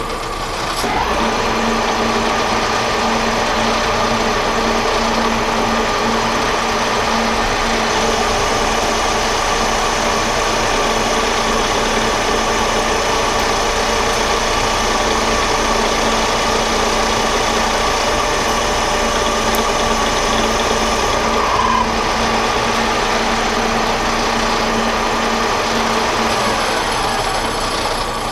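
Metal lathe running and taking a 0.050-inch cut on a turned part: a steady machine hum with a cutting whine that comes in about a second in and drops away about three-quarters of the way through.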